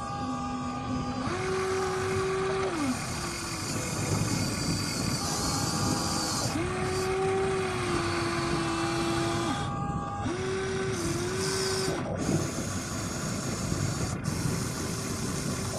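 Huina RC excavator's electric motors whining in several spells as the boom, arm and bucket move, each whine rising, holding steady and dropping away, over the scrape and crunch of the bucket in loose soil.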